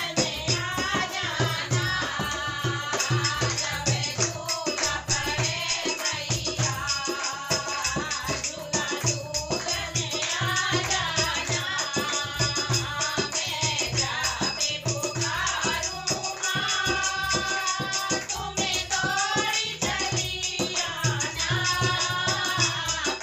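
Devotional Hindi bhajan music: a wavering sung melody over a steady hand-drum beat and a fast rattling shaker-like percussion.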